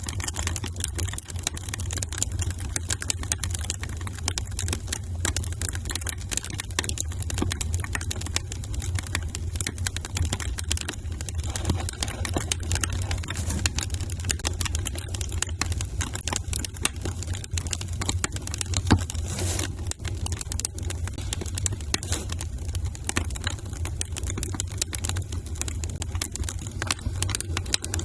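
Wood fire crackling in a fireplace: a dense, irregular patter of small pops and snaps over a steady low rumble, with one sharper pop about two-thirds of the way through.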